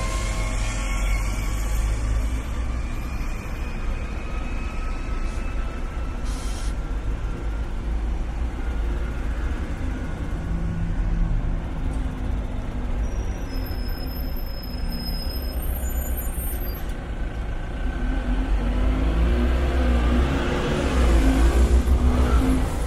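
Slow-moving road traffic: a steady low rumble of car and truck engines, with engine tones rising and falling as vehicles crawl along. It grows louder near the end.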